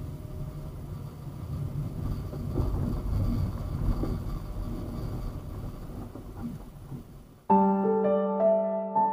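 A car driving, with a steady low road and engine rumble that fades out about seven seconds in. Piano music then starts with a held chord.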